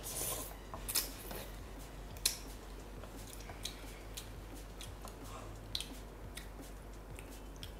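Close-miked eating of spicy glass noodles: a slurp of noodles right at the start, then wet chewing with a string of sharp mouth clicks about a second apart.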